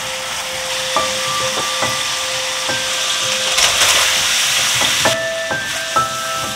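Food sizzling in a hot wok under background music of single sustained notes. The sizzle flares loudly for about a second, a little past three seconds in, as button mushrooms go into the hot pan.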